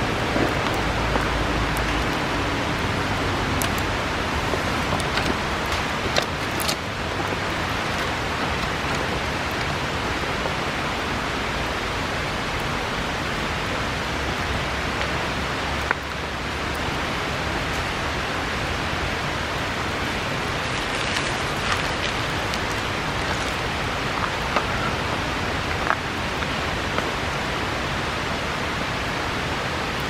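Steady rushing of a river, with a few scattered sharp crackles and pops from a wood bonfire heard through it.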